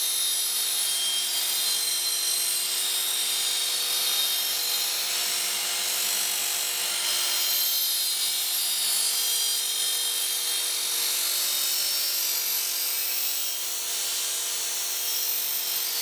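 Work Sharp Ken Onion electric belt sharpener running steadily, its motor humming under a continuous gritty hiss as a Collins machete's steel edge is ground against the coarse abrasive belt. This is the grinding that raises a burr along the length of the blade.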